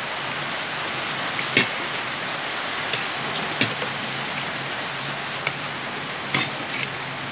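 Rain falling steadily as an even hiss, with a few sharp clicks of a metal spoon against a plastic plate.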